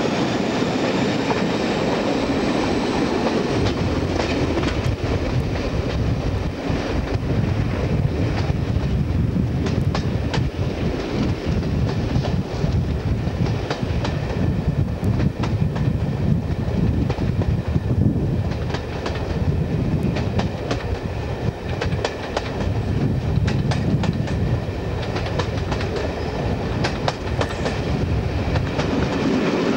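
Passenger coaches of a diesel-hauled train running at speed, heard from an open coach window: a steady rumble with wheels clicking over the rail joints.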